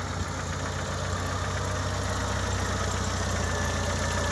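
A 1985 Pontiac Fiero 2M4's 2.5-litre four-cylinder engine idling steadily, slowly growing louder.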